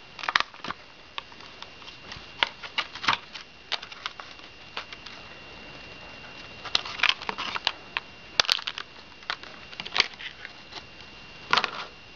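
Clear plastic clamshell packaging of a laptop RAM module being opened and handled: irregular clicks and crackles of stiff plastic, with busier clusters about seven seconds in and near the end.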